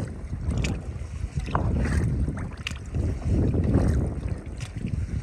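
Wind buffeting the microphone in gusts, a heavy low rumble that swells twice, with a few faint short clicks over it.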